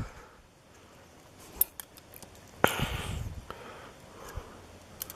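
Light metallic clicks and taps of tweezers and small lock parts being handled, a handful of separate ticks with the sharpest about two and a half seconds in.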